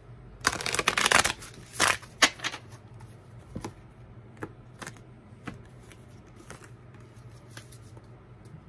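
A tarot deck shuffled by hand: a dense rustle of cards for about a second, then a few shorter rustles. After that come scattered light clicks and taps as cards are handled on the table.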